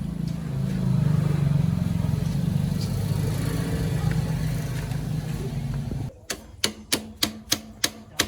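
Motorbike engine running steadily, then cutting off suddenly about six seconds in. After it comes a regular clicking, about two to three clicks a second.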